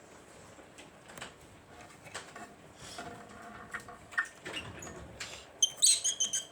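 A pet parrot giving a quick run of short, high-pitched chirps near the end, after scattered small clicks and scuffs.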